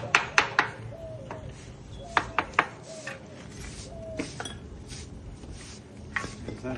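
Construction tools striking with sharp metallic clinks and taps, coming in short runs of three or four.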